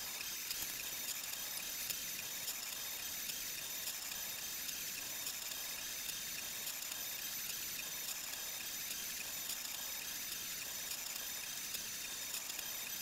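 Monoprice Select Mini 3D printer running a print: a steady high-pitched whir from its fans and stepper motors, with faint steady tones and small irregular ticks as the print head moves.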